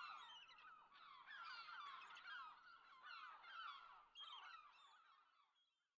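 Faint chatter of many birds calling at once: short chirps overlapping, dying away about five seconds in.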